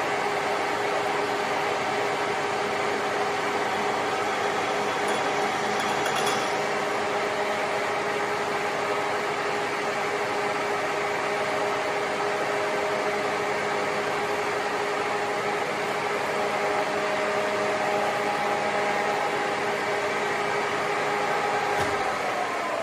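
A motor-driven machine running steadily, a hum over a hiss, then switched off near the end and winding down, its pitch falling quickly.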